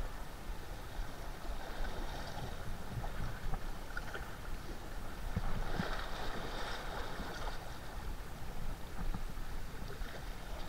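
Wind buffeting the microphone, over sea water washing against shore rocks, with a slightly louder surge about six seconds in.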